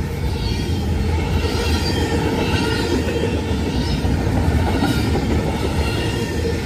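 Norfolk Southern double-stack intermodal container cars rolling past, a steady rumble and clatter of steel wheels on the rails.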